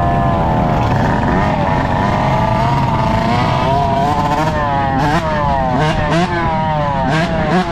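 Dirt bike engine running hard under the rider, its pitch climbing and falling as the throttle is worked, with quick throttle chops about five, six and seven seconds in. Other dirt bikes and quad ATVs ride alongside.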